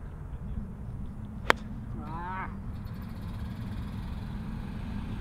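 A golf club strikes a ball once with a sharp click about a second and a half in, and a brief wavering pitched call follows, over a steady low rumble.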